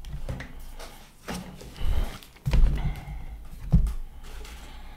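A few dull, low thumps over a low room rumble, about four in all, spread through the middle of the stretch.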